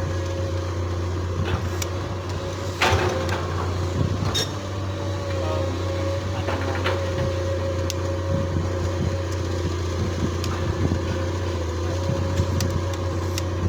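Excavator's diesel engine running steadily, with a few sharp metallic knocks over it.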